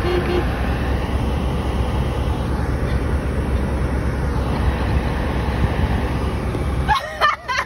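Steady low rumble of an idling car, heard from inside the cabin. It cuts off abruptly about seven seconds in, and a voice comes in.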